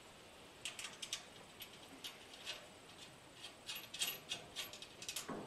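Faint, irregular small clicks and ticks of metal hardware being handled: bolts, nylock nuts and washers being picked up and fitted to a trailer ball coupler on a lawn cart tongue.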